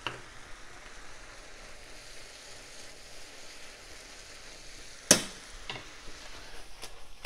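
Creamed spinach sizzling and bubbling in a frying pan as the cream reduces, with a spatula stirring through it. A sharp knock about five seconds in, the loudest sound, with a smaller one just after.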